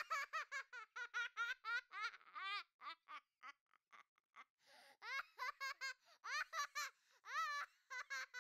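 A baby laughing in rapid high-pitched giggles, each short burst rising and falling in pitch, about four or five a second; the giggling eases off briefly near the middle, then picks up again.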